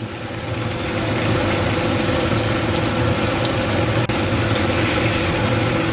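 Sweet bean paste frying in hot oil in the middle of the stir-fried pork shreds: a steady, crackling sizzle over a low, even hum.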